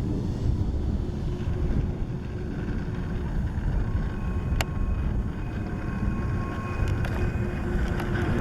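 Wind rumbling on the microphone over the faint, steady whine of a radio-controlled jet's twin 127 mm electric ducted fans in flight, clearer from about halfway. Three sharp clicks come in the second half.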